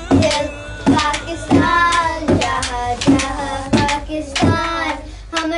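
Young girls singing a song together, with a hand-held frame drum struck in a steady beat beneath their voices.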